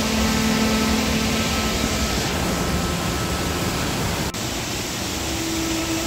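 Steady rushing of river water flowing over rocks and small rapids, an even hiss with a brief break about four seconds in.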